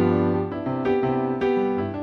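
Solo piano music: single notes and chords struck about every half second, each fading after it is struck.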